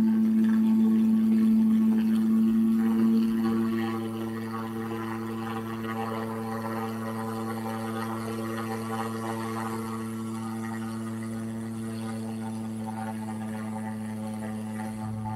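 A steady low-pitched hum with a stack of even overtones, dropping noticeably in level about three and a half seconds in and then holding steady.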